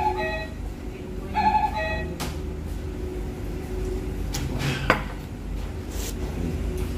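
Restaurant dining-room ambience with a steady low hum and faint background music. Two short high tones sound in the first two seconds, and a single sharp knock comes about five seconds in.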